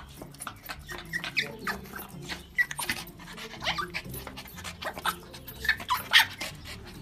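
Small dog giving short, excited whines and yelps, over and over at an irregular pace.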